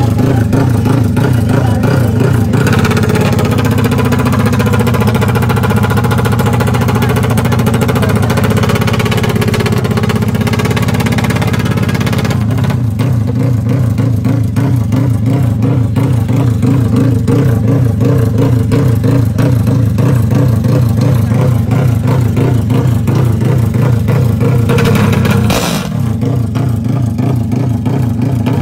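Four-stroke single-cylinder drag bike engine, a Honda Sonic 150 fitted with a CBR fuel-injected engine, running loud at a steady fast idle with an even exhaust pulse while it waits to launch. A short sharp burst and a brief dip come near the end.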